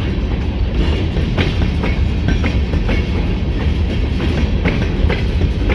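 Escanaba & Lake Superior freight train rolling past with a steady low rumble, its car wheels clicking over rail joints at irregular intervals. No horn is sounded.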